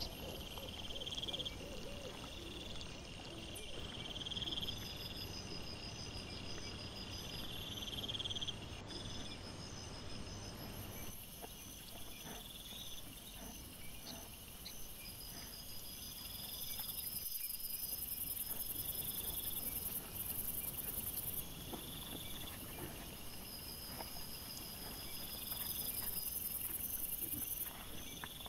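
Crickets chirping in repeated trains of rapid high pulses, each train a second or more long, over a low background hiss.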